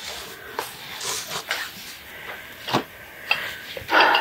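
Objects being handled and set down in a cardboard box: a few light knocks and clicks, with some rustling.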